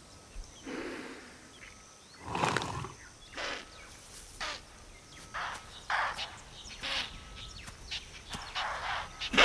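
Leopard and impala struggling as the leopard holds the impala by the muzzle: a run of short, harsh rasps and grunts, roughly one a second, the loudest about two and a half seconds in and again at the end.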